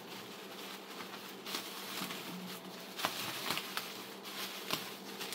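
Bubble wrap crinkling and rustling as it is unwrapped by hand, with scattered sharper crackles, over a faint steady low hum.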